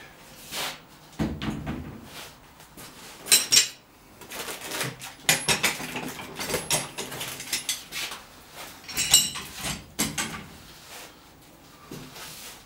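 Metal screw clamps being lifted out of a foam packing tray and set down, with irregular clanks and clinks of metal against metal and other hard parts.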